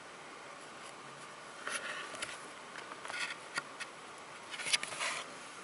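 Thick cardboard pages of a board book being turned by hand: several short scraping rustles, the last and loudest about five seconds in.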